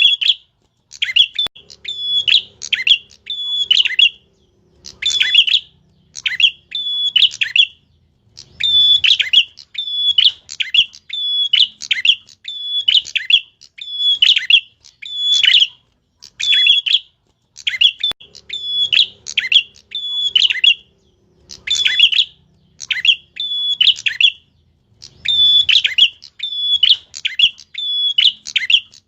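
A songbird singing continuously in sharp, high chirps, delivered in quick runs of two to four notes with only brief gaps between runs.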